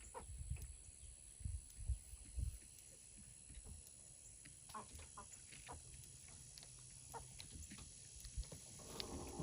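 Chickens clucking softly in short, scattered calls, with a fuller call near the end. A few low thumps in the first couple of seconds are louder than the calls.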